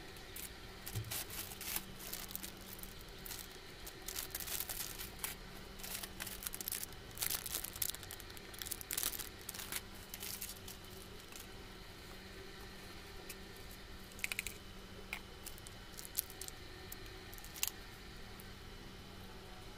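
Plastic packaging and a nonwoven shopping bag crinkling and rustling as items are handled and pulled out, busy for the first ten seconds or so, then a few scattered sharp clicks and taps.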